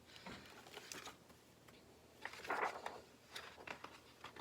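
Faint paper rustle of a picture book being handled and its page turned, one brief rustle about halfway through followed by a few light clicks.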